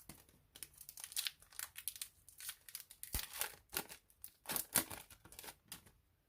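Crinkling and tearing of a trading card pack's plastic wrapper as it is torn open by hand, a dense run of crackles for about five seconds.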